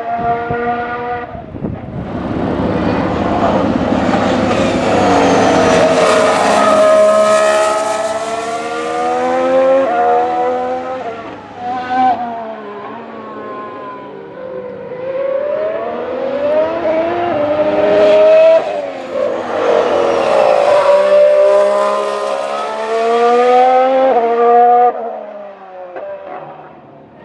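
Ferrari Formula 1 car's turbocharged V6 hybrid engine at racing speed. It revs up and falls back repeatedly, with sudden drops in pitch at the gear changes and on lifting off.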